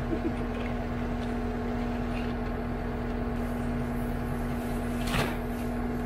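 Skid steer engine running at a steady drone while powering a concrete mixer attachment as dry concrete mix is emptied into the drum; a short knock about five seconds in.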